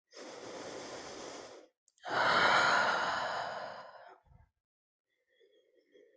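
A woman breathing audibly: a quieter breath, then a longer, louder sigh that fades out.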